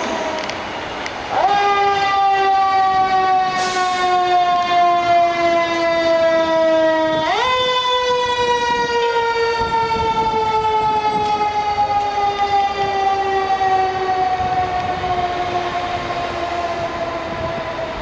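Federal Signal Q2B mechanical siren on a fire engine, its whine falling slowly in pitch as the rotor coasts down. It is spun back up quickly twice, about a second and a half in and again about seven seconds in, and coasts down slowly after each.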